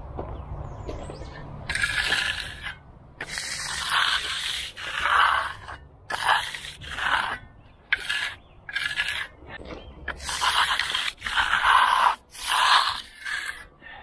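Steel hand trowel scraping across setting concrete in about a dozen quick strokes, each under a second, with short gaps between them. A low steady hum runs underneath.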